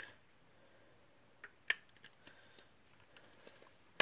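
A handful of light, sharp clicks and taps of small plastic parts and batteries being handled while batteries are fitted into a small battery-powered mini vacuum; the sharpest click comes a little under two seconds in.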